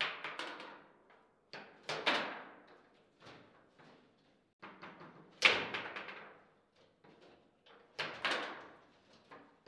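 Table football in play: sharp clacks and bangs of the ball being struck by the figures on the rods and hitting the table, in bursts every two to three seconds, the loudest about five and a half seconds in.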